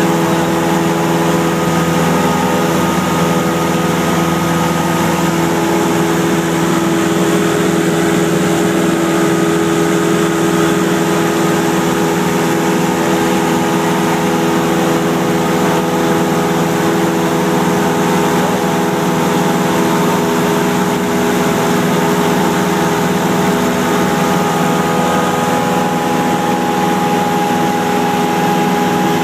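Cessna 172's piston engine and propeller droning steadily in cruise flight, heard inside the cabin over a constant rush of air noise.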